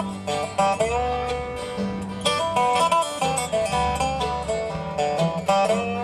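Resonator guitar picked with thumb and finger picks, playing an instrumental bluegrass run in which several notes slide up in pitch.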